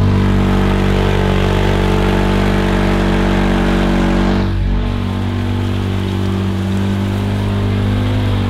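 Side-by-side UTV fitted with tracks driving through a muddy field: a steady engine drone with churning track and mud noise, the engine note dipping and shifting briefly about four and a half seconds in.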